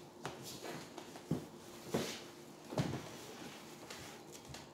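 Plastic spoon stirring fluffy slime made of glue and shaving cream in a plastic tub: soft squishes and a few sharp clicks of the spoon against the tub, the loudest about a second, two seconds and three seconds in.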